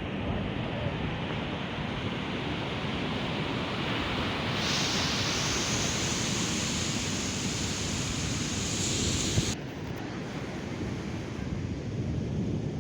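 Heavy surf breaking and washing on a beach, with strong wind buffeting the microphone. About halfway through a louder, hissier wash rises, then cuts off suddenly a couple of seconds before the end.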